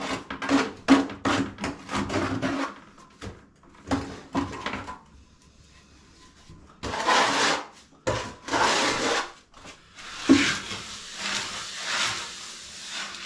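Hand float rubbed over fresh cement render on a wall, making rasping strokes. A quick run of short scrapes comes first, then longer back-and-forth strokes from about halfway in.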